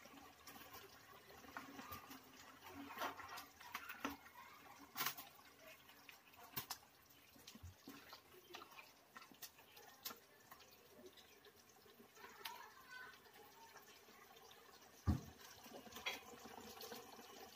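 A frying pan of tomato-sauce stew being stirred while it simmers: scattered light clicks and scrapes of the spatula against the pan over faint bubbling of the sauce. A single dull thump about fifteen seconds in.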